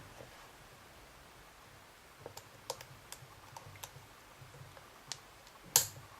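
Light metallic clicks of a lock pick working the pins of a Vachette V5 pin-tumbler lock under tension: a scattered run of small clicks starts about two seconds in, with one louder click near the end.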